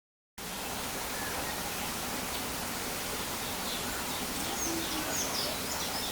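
Steady outdoor hiss that cuts in suddenly, with faint, short, high-pitched bird chirps scattered through the second half.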